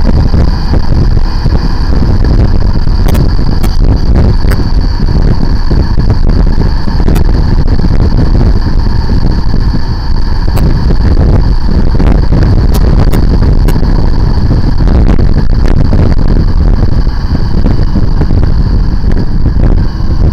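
Motorcycle riding at road speed, heard through a handlebar camera's microphone: a loud, dense low rumble of wind buffeting over the mic with the engine beneath it, while the bike slows down. A few sharp ticks sound now and then.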